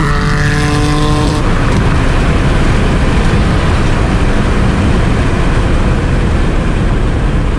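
Turbocharged Nissan 350Z HR's 3.5-litre V6 pulling hard under load from inside the cabin, its engine note running on just after a gear change. About a second and a half in, the engine note drops away, leaving loud, steady wind and road noise at speed.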